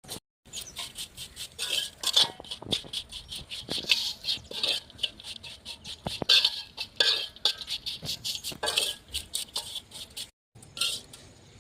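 Metal utensil repeatedly scraping and clinking against cookware in quick, uneven strokes, broken by two brief silent gaps.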